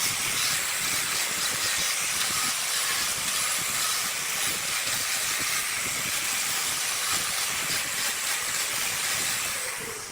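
Steady hissing noise that fades out near the end.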